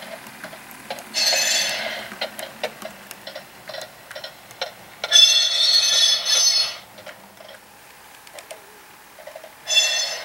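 Model train with a Tsunami Soundcar sound decoder running past: a steady clickety-clack of wheels over rail joints. It is broken three times by loud high-pitched tones, about a second in, a long one around five to seven seconds, and a short one near the end.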